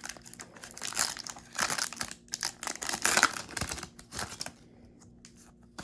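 Foil Pokémon booster pack wrapper crinkling and being torn open by hand, in a run of rustling bursts that dies down after about four and a half seconds.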